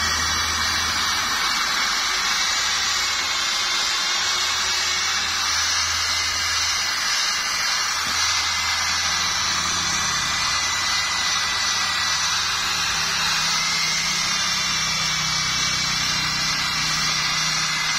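Makita electric buffer with a wool pad running steadily, buffing a plastic car headlight lens with rubbing compound.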